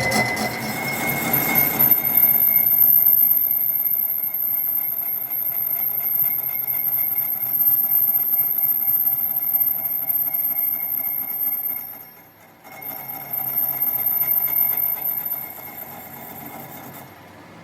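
A workshop machine running steadily with a low hum and a thin high whine. It starts with rapid clicking, dips briefly about twelve seconds in, then picks up again and fades lower near the end.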